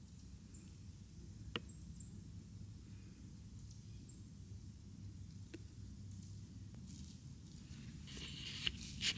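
Quiet woodland ambience: a low steady rumble with faint short high chirps and a couple of sharp clicks, then a brief louder rustle of leaves near the end.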